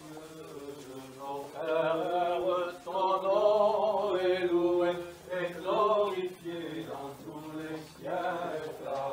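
Orthodox liturgical chant sung during a church service. A melodic vocal line is held over a steady low note, growing louder about a second and a half in.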